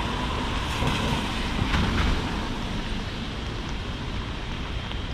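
Rain with traffic on wet streets: a steady hiss over a low vehicle rumble, swelling briefly about two seconds in as a vehicle passes.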